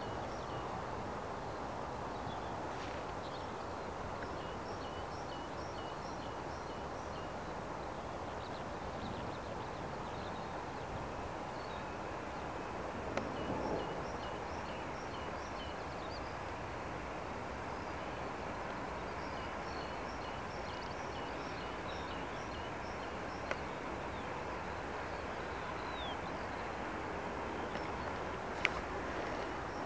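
Small birds chirping in runs of short, repeated high notes over steady outdoor background noise, with a few brief faint clicks.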